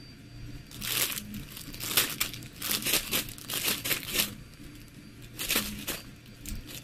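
A baby crinkling and shaking a plastic Lay's potato chip bag: a run of crackly rustles starting about a second in, then another brief crinkle near the end.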